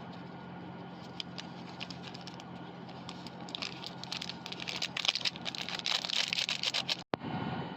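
Microwave oven running with a steady hum while it heats instant noodles, with crackling that starts sparsely and builds into a dense patter from about halfway through, then cuts off suddenly near the end.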